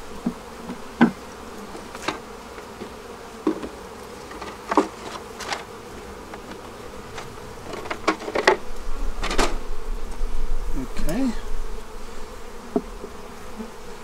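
Honeybees buzzing steadily around an open Langstroth hive, with wooden frames and hive boxes knocking as frames are lifted and moved between boxes; the knocking and handling grow busier about halfway through.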